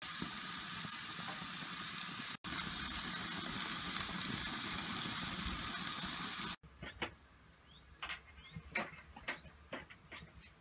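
T-bone steak and chicken breasts sizzling on a gas grill's grate: a steady hiss, broken once at about two and a half seconds, that cuts off suddenly after about six and a half seconds. Then a much quieter stretch with a few sharp clicks and faint short bird chirps.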